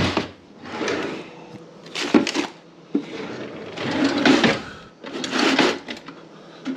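Wooden kitchen drawer pulled open, then kitchen utensils rattling and clattering in several bursts as a hand rummages through them.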